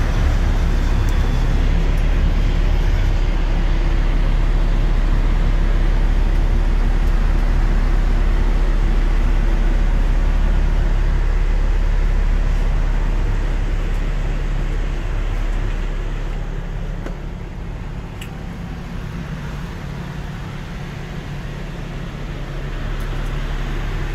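The 2016 Peterbilt 389's 550-horsepower diesel engine idling steadily, heard from inside the cab; the rumble gets a little quieter about two-thirds of the way through.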